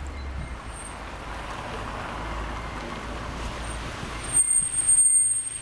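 Steady city traffic noise with a low rumble. In the last second or so it gets louder, and a thin, steady, high-pitched whine runs over it.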